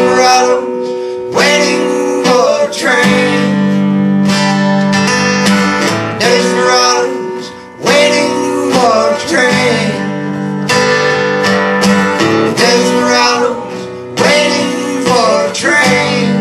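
Live solo acoustic guitar, strummed and picked in an instrumental break of a country-folk song, with fresh chords struck every second or two.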